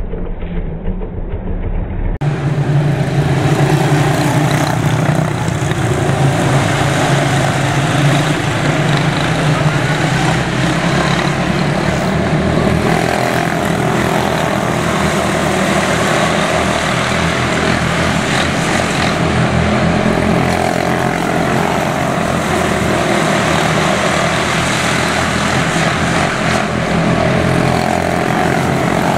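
Quarter midget race cars running together at racing speed, their single-cylinder Briggs & Stratton Animal engines making one steady drone of overlapping engines that grows louder about two seconds in.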